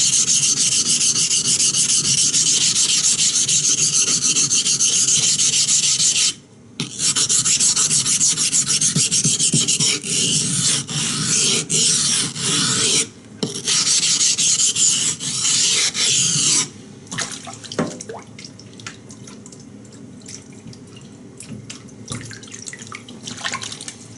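Knife blade being sharpened by hand on a wet waterstone: rapid back-and-forth gritty scraping strokes. The scraping breaks off briefly about six seconds in and again about thirteen seconds in. It stops near seventeen seconds, leaving only quieter scattered taps and clicks.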